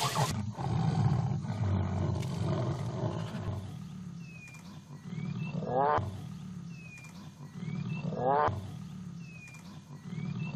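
Mating tigers growling in a steady low rumble. Over it, a bird calls three times at even intervals, each time a high whistled note followed by a quick rising call.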